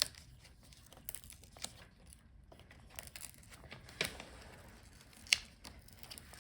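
Handling noise from a freed laptop LCD panel being worked on to reach its video cable connector: scattered light clicks and crinkles of plastic and tape, with one sharp click about five seconds in.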